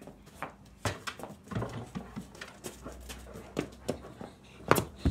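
A dog and a player tussling over a basketball on paving: irregular knocks and scuffs of the ball, paws and shoes, with a pair of sharper knocks near the end. There are sounds from the dog mixed in as it goes after the ball.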